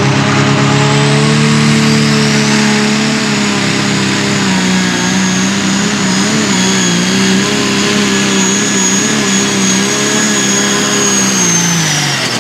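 Turbocharged diesel engine of a light limited super stock pulling tractor running flat out during a pull, its note held high with a slight waver and a high turbo whistle above it. Just before the end the engine note and the whistle fall away as the throttle comes off.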